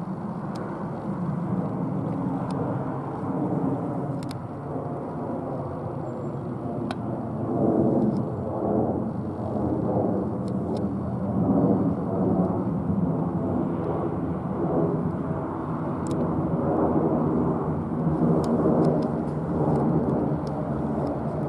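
Boeing 737-800's CFM56-7B jet engines as the airliner climbs out overhead after takeoff: a steady rumble that grows louder about seven seconds in.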